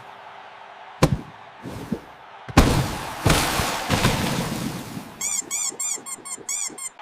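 A sharp knock and a weaker one, then a loud crash-like rush of noise lasting nearly two seconds, then a quick run of about ten short, high squeaks.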